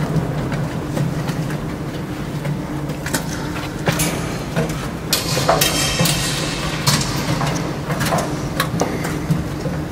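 Irregular metal clanks and knocks from climbing on scaffolding poles and planks, several in quick succession in the second half, over a steady low hum.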